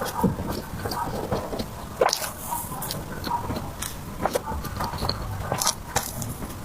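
Close-miked chewing of soft cream-filled dessert: wet, sticky mouth sounds with irregular smacks and clicks, the sharpest about two seconds in and near six seconds.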